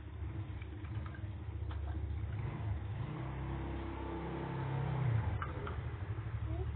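A motor vehicle engine running and passing by, its low rumble growing louder to a peak about five seconds in.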